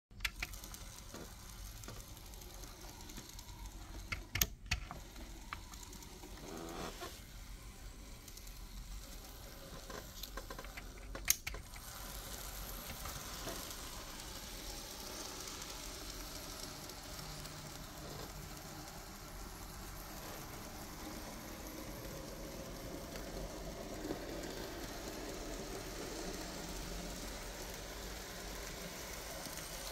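Märklin Z-scale model locomotive running on its track: a steady fine hissing whir of the tiny motor and wheels that sets in about twelve seconds in and carries on. A few sharp clicks come before it.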